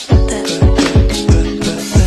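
Background music with a steady, heavy beat and sustained synth-like notes.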